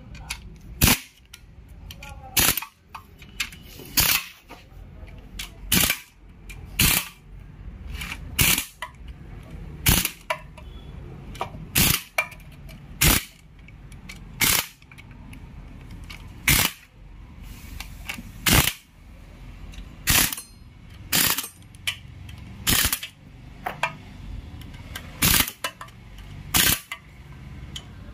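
A series of sharp knocks, about one every second and a half at an uneven pace, over a faint low background.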